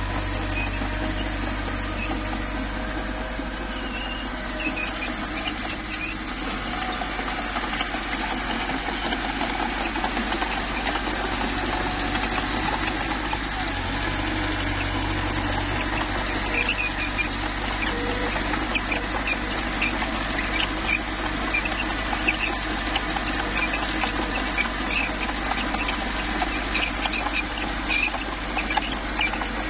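Mini bulldozer at work: its engine runs steadily under many short high squeaks and clicks from the tracks and the rock being pushed, which grow busier about halfway through.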